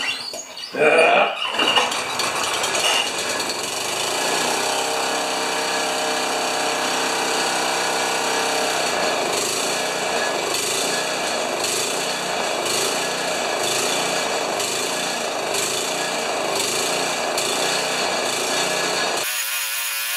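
Honda HRA214 lawn mower engine pull-started, catching about a second and a half in and then running steadily. The engine starts only on choke and has to be teased to stay running, which the owner puts down to a carburettor that needs cleaning and adjusting.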